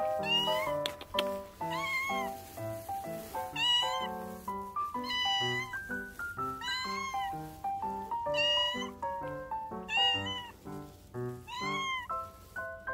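A cat meowing over and over, about one high, arching meow every second and a half, over background music with a quick-moving melody.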